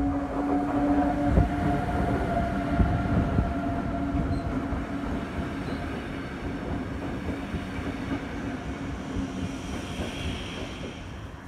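Rhaetian Railway Ge 4/4 III electric locomotive and its coaches passing close by, with a steady hum from the locomotive and a few sharp knocks of wheels over rail joints in the first seconds. The sound fades as the coaches roll past.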